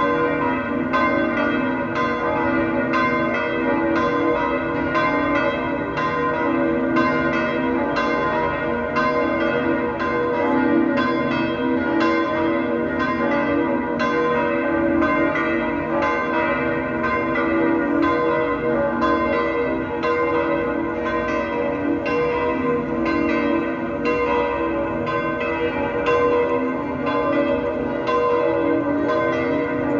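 Church bells pealing without a break, many bells ringing into one another with new strikes about twice a second.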